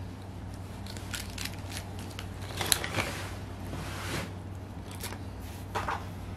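Small clicks and rustles as a new nylon dog collar and its tag are handled and the tag is taken off, with one sharp snap a little before the middle.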